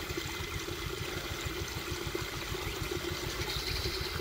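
Small engine running steadily at idle with a fast, even pulse.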